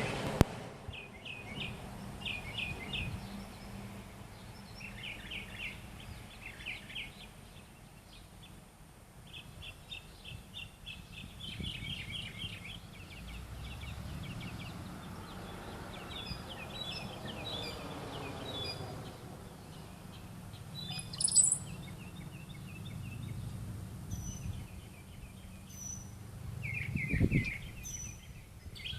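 A bird chirping in quick runs of short, high notes with pauses between the runs, and one sharp click a little past two-thirds through.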